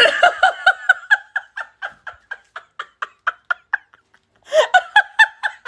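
A person laughing in a fast run of short, high-pitched bursts, about four or five a second, that fade away over about four seconds. After a brief pause, a louder burst of laughter comes near the end.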